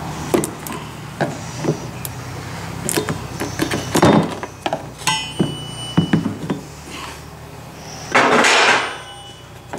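Sharp plastic clicks and light knocks of wiring-harness clips being prized loose with a trim tool and the harness being handled, with a louder rush of noise lasting under a second about eight seconds in.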